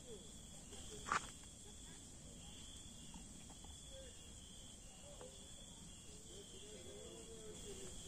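Steady chirring of crickets at dusk in the forest, at two high pitches. A single sharp click or knock about a second in, as something is handled on the camp table.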